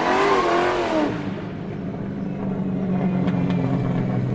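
Car tyres squealing with a wavering pitch, cutting off about a second in. Then a car engine idles steadily, with a few faint ticks.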